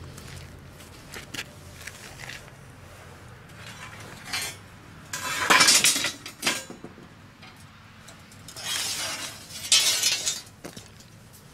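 Lengths of mild steel flat bar clinking and scraping against one another as one is pulled from a pile. The clatter comes in two loud spells, about five seconds in and again near nine seconds, with a few light clicks before.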